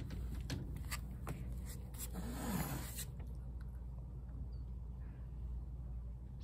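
A few scratchy brush strokes through a cat's fur, then a cat hisses once, briefly, a little over two seconds in.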